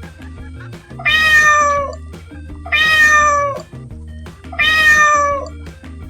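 Domestic cat meowing three times, each meow about a second long with a slightly falling pitch, over background music.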